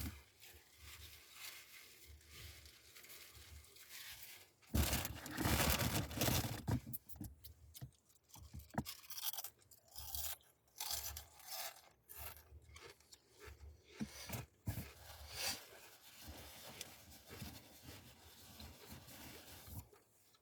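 Close-miked eating sounds: chewing and crunching with scattered clicks, and a louder stretch of noisy crunching about five seconds in.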